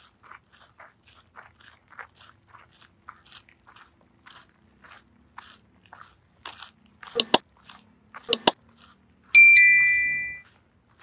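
Footsteps at a walking pace. About seven seconds in come two pairs of sharp clicks. Near the end a loud metallic bell ding sounds, two close tones that ring out and fade over about a second.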